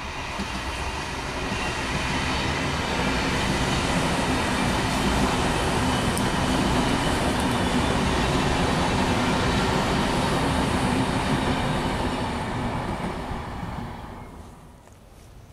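Trenord double-deck electric multiple unit passing at speed, its wheel and rail noise building up over the first couple of seconds, holding steady, then fading away about fourteen seconds in.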